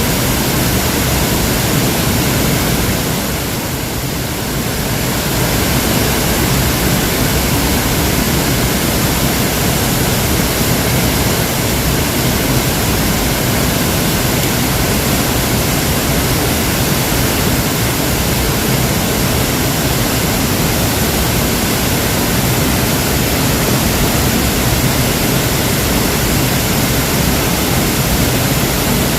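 Waterfall: a steady rush of falling water, briefly a little quieter about four seconds in.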